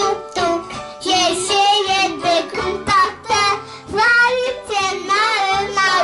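A young girl singing a song into a microphone over instrumental backing music, her voice loud and wavering in pitch on held notes.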